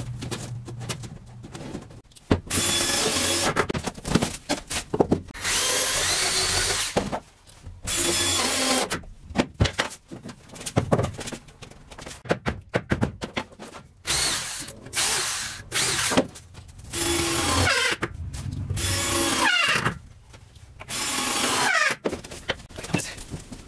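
Power drill run in repeated bursts of a second or two into wooden 2x4 framing, the motor's pitch rising and falling within bursts, with knocks and clatter in the pauses between.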